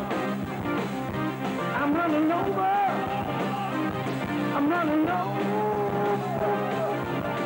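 Live rock band playing a song on keyboards, electric guitar and drums, with a wavering melody line over held chords.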